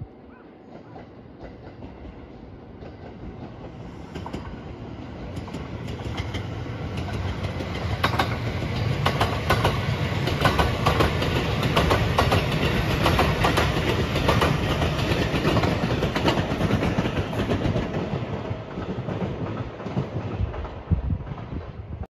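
Rapid Marine Liner electric multiple-unit train approaching and passing close by, its wheels clattering in a rhythm over the rail joints. It grows louder over several seconds, is loudest in the middle, and fades away near the end.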